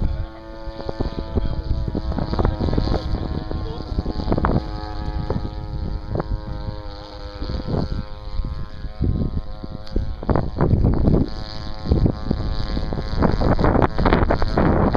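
Steady drone of a quarter-scale RC Piper Cub's Turnigy 26cc two-stroke gas engine in flight overhead. Gusts of wind buffet the microphone, heavier in the second half, partly covering the engine.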